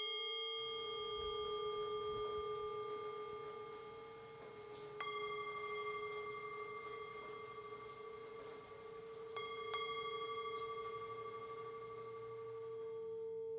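Singing bowl tones ringing on with a slow wobble. The bowl is struck again about five seconds in, then twice in quick succession about nine and a half seconds in, each strike ringing out and slowly fading.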